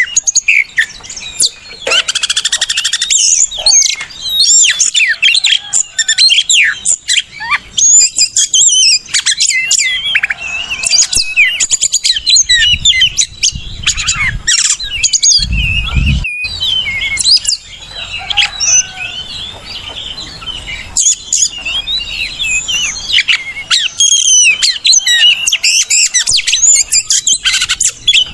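Oriental magpie-robin (kacer) singing a continuous run of rapid, varied whistles and chirps. A low thump sounds about halfway through.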